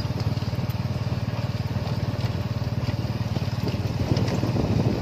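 Motorcycle engine of a tuk-tuk running steadily while under way, a low, fast, even pulsing.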